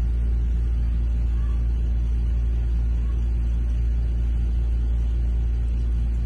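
A steady low hum, unchanging throughout.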